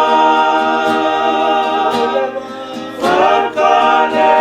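A choir singing a hymn in Tongan in several-part harmony, holding long notes. The sound dips briefly, then a new phrase comes in about three seconds in.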